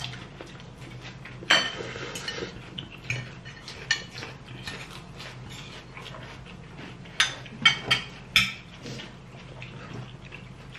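Knives and forks clinking and scraping on dinner plates as people eat, in scattered sharp clinks, with a quick run of four louder clinks about seven to eight and a half seconds in.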